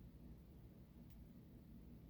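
Near silence: a faint steady low hum, with one faint tick about a second in.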